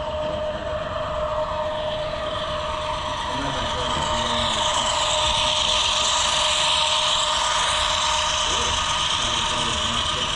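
HO scale model train rolling past on the layout's track, with the hiss and rattle of its wheels on the rails growing louder over the first few seconds and then staying up.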